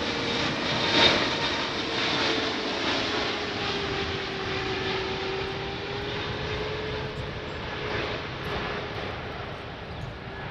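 Airliner's jet engines passing and receding: a broad engine rush with a steady whine that slowly drops in pitch as the noise fades.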